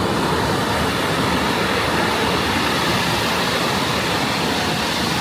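Steady, loud rush of ocean surf breaking on the beach.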